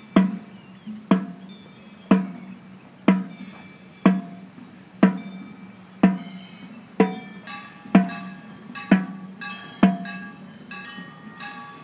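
A drum struck in a slow, even pulse, about one stroke a second, each stroke ringing low and dying away. The strokes stop near the end, where faint high ringing tones come in.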